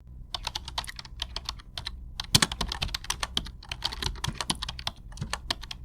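A rapid, irregular series of sharp clicks and taps, several a second, with a louder cluster a little over two seconds in.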